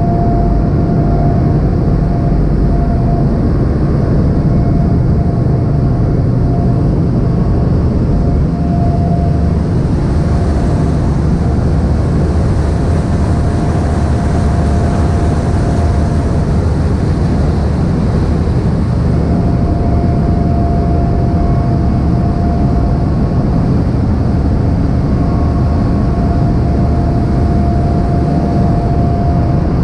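A ship's engines run steadily under way, a loud low rumble mixed with the rush of churning wake water. A thin steady whine sits above it, fading out for a while in the middle and then returning.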